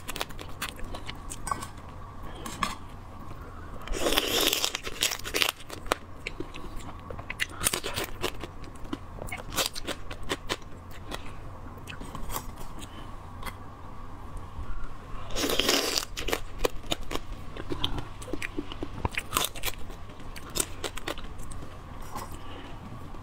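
Close-miked crunching and biting on pieces of raw marinated crab: shell and legs crack in many small sharp clicks as they are chewed and gnawed. There are two louder, longer bursts, about four seconds in and again about sixteen seconds in.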